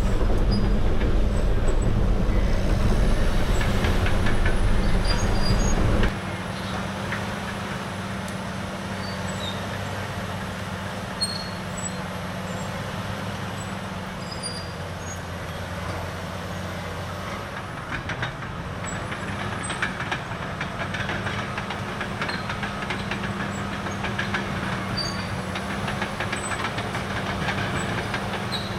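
Caterpillar D6R dozer's C9 diesel engine running steadily, with a deep low rumble that drops away suddenly about six seconds in, leaving the engine's even hum with scattered clicks and knocks.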